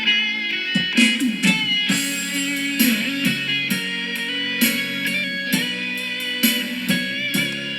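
Electric phin, the Isan plucked lute, playing a plucked melody over a steady drone.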